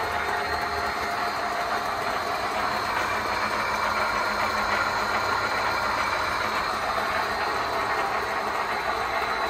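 Mikron 102-05 gear hobbing machine running, a steady mechanical hum with a faint held whine and no change in pace.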